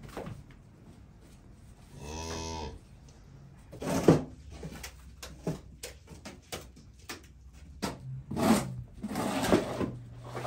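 A cow moos once, briefly, about two seconds in. Irregular knocks and rustling handling noises follow, the loudest a sharp knock about four seconds in.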